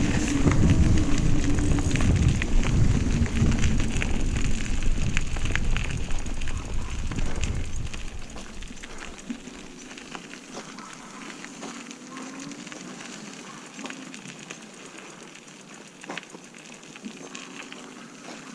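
Bicycle riding along a path. Low wind rumble on the microphone for about the first eight seconds, then it drops away, leaving a quieter crackling tyre noise with scattered small clicks.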